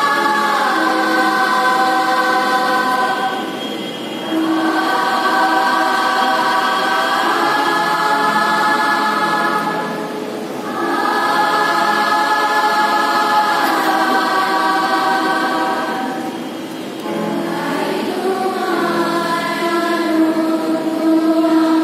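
Girls' choir singing a Bengali song in long, held phrases, with brief breaks for breath about every six seconds.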